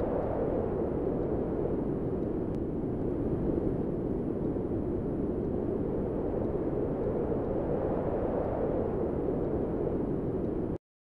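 A steady, low rumbling noise with no distinct tones or rhythm, cut off suddenly near the end.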